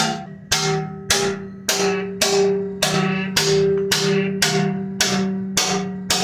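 A hammer striking the Yamaha Ténéré 700's thin stock metal skid plate in a steady rhythm, a little under two blows a second, each blow leaving the plate ringing. Light blows like these dent the thin plate.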